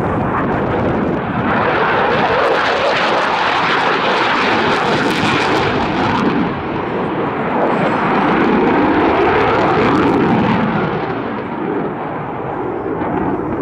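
Jet noise from a Eurofighter Typhoon's twin Eurojet EJ200 turbofans at high power as the fighter pulls up and climbs: a loud, steady rush that dips briefly about halfway, swells again, and is loudest about two-thirds of the way through.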